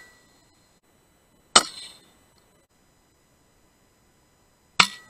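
Two shots from a PCP air rifle, about three seconds apart, each a sharp crack that dies away within half a second; the first has a slightly longer rattling tail. Near silence between them.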